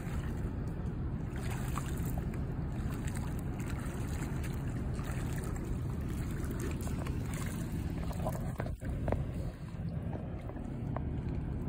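Steady low wind rumble buffeting the phone's microphone over open water, with a few faint clicks.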